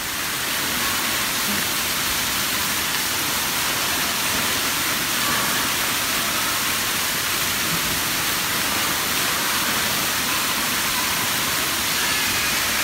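Steady rush of running water in an indoor water park: an even, unbroken hiss of water flowing down the slides and play features.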